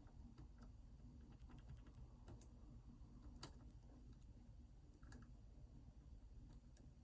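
Faint, scattered clicks of a lock pick and tension wrench working the pin stack of an ASSA Twin 6000 high-security lock, with one sharper click about three and a half seconds in. The pins are being clicked out and reset while the picker searches for a full set.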